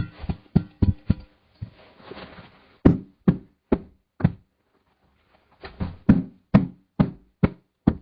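A run of dull knocks on a hard surface: a quick cluster at the start, then four evenly spaced knocks, a short pause, and six more evenly spaced knocks near the end.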